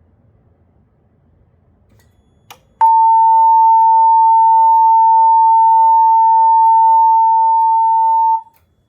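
Siemens Desigo fire alarm speaker sounding a loud, steady single-pitch alert tone for about five and a half seconds, starting about three seconds in just after a faint click and cutting off abruptly. It is the alert tone that leads into the system's voice emergency announcement.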